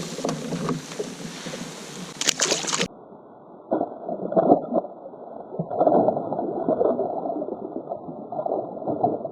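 Water splashing as a bass is let go beside a kayak. About three seconds in the sound turns muffled, and gurgling and sloshing of water is heard from under the surface.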